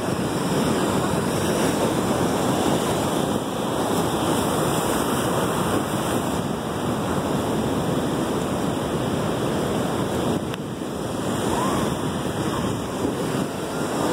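Sea waves breaking against a rocky jetty and foaming over the rocks: a steady, unbroken rush of surf.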